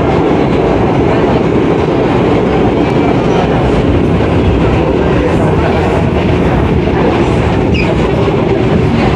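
NYC Subway R62A car riding along the rails, heard from inside the car: a steady loud rumble of wheels and running gear, with clickety-clack over the track.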